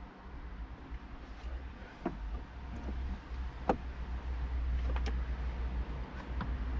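A few sharp metallic clicks and knocks from hand tools, likely socket extensions being joined into a long reach, over a low rumble of handling noise that grows about two seconds in.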